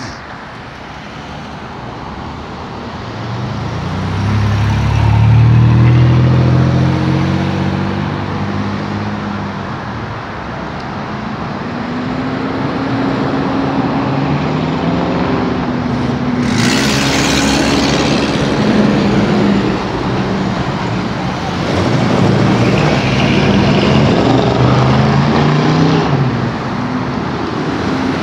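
Road traffic: cars and other vehicles passing one after another on a multi-lane road, their engines swelling and fading as each goes by, loudest about five seconds in. A brief hiss sounds a little past the middle.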